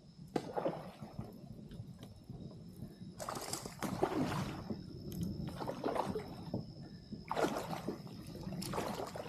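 Water splashing and sloshing against a kayak in repeated bursts, about one every one to two seconds, the louder ones in the second half.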